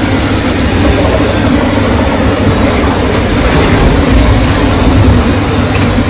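PRAIM PMU-600 industrial dishwasher running a wash cycle: a steady pump hum under the loud, even rush of water spraying from the rotating wash arms onto the stainless-steel chamber walls.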